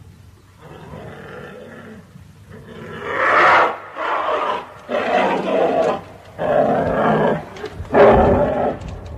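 Bear growling and roaring: a quieter growl in the first two seconds, then four loud roars of about a second each, with short pauses between them.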